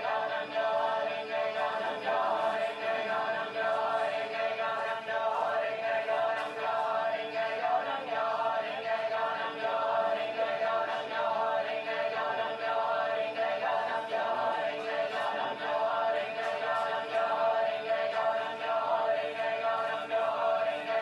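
A choir of voices singing a capella, many long overlapping tones held without a break.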